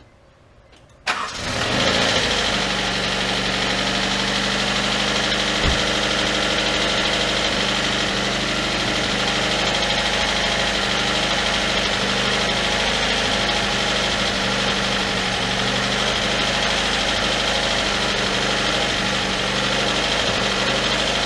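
2000 Honda CR-V's 2.0-litre four-cylinder engine starting about a second in and then idling steadily. It idles with a miss and a valvetrain rattle, from valve lash set far too loose.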